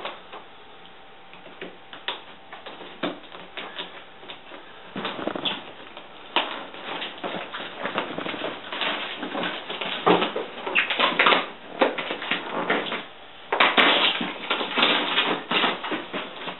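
Cardboard box being cut open: irregular scraping and tearing strokes through tape and cardboard, sparse at first and much busier from about five seconds in.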